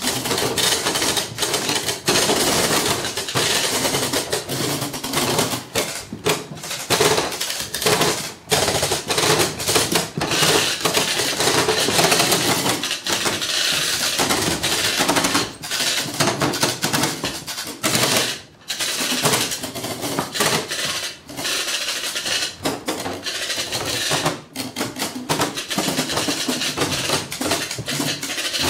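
Loud, continuous rattling clatter from hand-held noisemaker boxes, a rapid stream of clicks with brief breaks about 8 and 18 seconds in.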